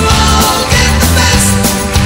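Loud background rock music with a steady beat, bass and drums.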